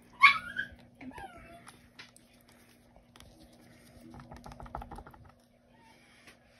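A dog whining: a sharp high cry that falls steeply in pitch, then a shorter, fainter falling whine about a second later. A run of faint light ticks comes around four to five seconds in.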